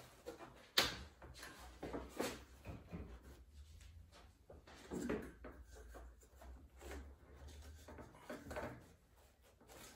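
Handling sounds of a concertina blind's aluminium frame rail and its plastic corner brackets on a wooden table: scattered light knocks and clicks with rubbing in between as a corner bracket is worked into the end of the rail, the sharpest knock about a second in.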